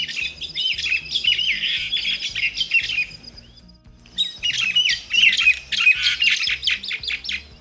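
Common myna singing: two phrases of rapid, varied notes, each about three seconds long, with a short pause between them.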